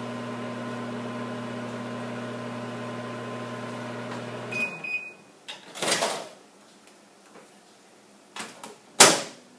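Microwave oven running with a steady hum that stops a little before halfway, followed at once by a short high beep. Then come a few clunks and a sharp knock near the end, the loudest sound here.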